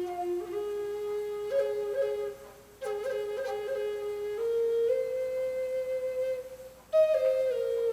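Native American wooden flute playing a slow solo melody, stepping between a few held notes and breaking off twice for breath.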